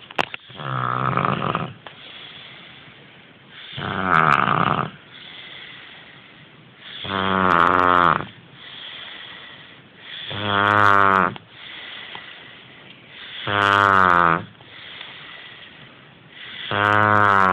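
A sleeping man snoring: six loud snores about three seconds apart, each lasting about a second, with softer breathing between them.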